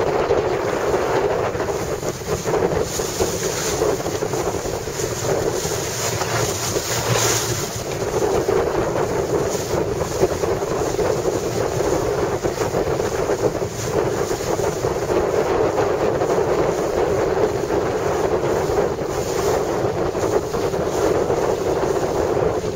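Steady wind buffeting the microphone over the rush and slap of choppy water, with a few stronger gusts or splashes flaring up briefly.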